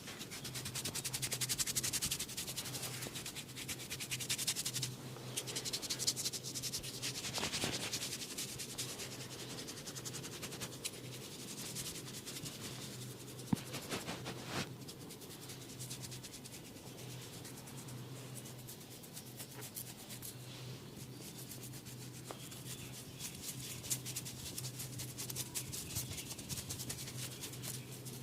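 Hands rubbing and stroking skin and hair in a head and face massage: a continuous dense rubbing, louder in the first half, over a steady low hum. A single sharp click about halfway through.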